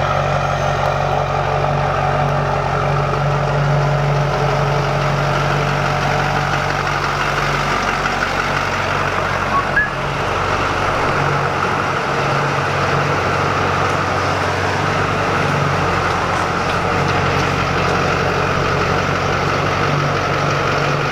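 LB7 Duramax 6.6-litre turbodiesel V8 idling steadily.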